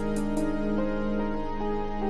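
Background music: soft, sustained keyboard-style notes changing every half second or so, with a light high ticking beat near the start.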